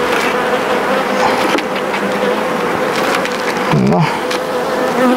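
Honeybees buzzing in a steady hum over an open hive, with one bee's pitch dipping and rising as it flies close about four seconds in.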